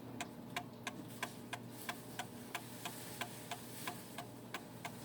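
Seth Thomas Adamantine mantel clock's recoil escapement ticking steadily, about three ticks a second. A faint hiss sits under the ticks about halfway through.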